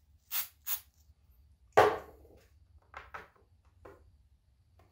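3D-printed PLA parts being handled and pressed together for gluing: two short scraping sounds near the start, a sharp knock a little under two seconds in, then a few lighter clicks.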